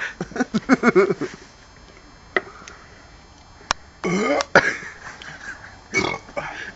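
A man belching several times after gulping down a can of beer. There is a run of short burps in the first second or so, and a loud long burp about four seconds in.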